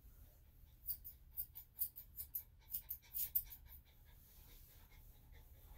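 Grooming scissors snipping through a small Yorkshire Terrier–Maltese cross's hair around the ear: a faint, quick run of short snips in the first half, then they stop.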